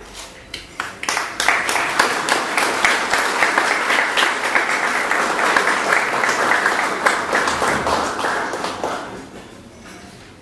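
Crowd applauding, the clapping building up about a second in, holding steady, and dying away near the end.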